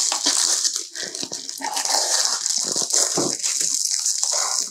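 Protective plastic film being peeled off a Cricut Explore 3 cutting machine's plastic body, crinkling and crackling in the hands.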